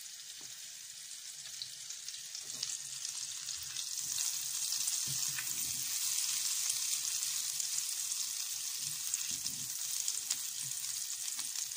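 Butter melting and sizzling in a hot frying pan, foaming as a spatula pushes the lump around. The sizzle grows louder about four seconds in, then holds steady.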